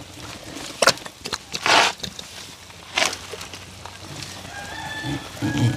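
Chickens clucking and squawking in short loud bursts, three times in the first three seconds, over background yard noise.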